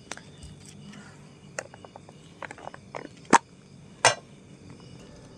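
Clicks and knocks of cooking gear being handled, a plastic container and a small metal pot, with two louder knocks a little after three and four seconds in. Faint steady insect chirring underneath.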